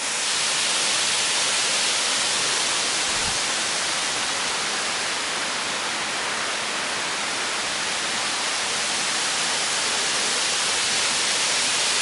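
A tall waterfall pouring down a rock face, heard close to its spray as a steady, unbroken hiss of falling water.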